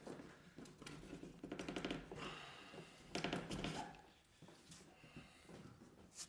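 Scraping and rustling of a spruce root being drawn through the birchbark and worked under the gunwale lashings, with a quick run of ticks and a couple of short scrapes.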